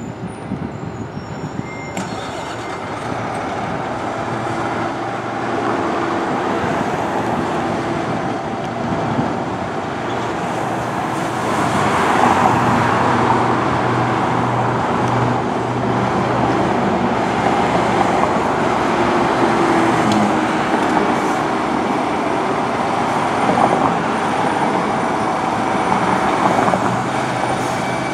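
Diesel engine of a 2019 KME Severe Service fire engine running, growing louder over the first dozen seconds as the truck pulls out of the station, then holding steady.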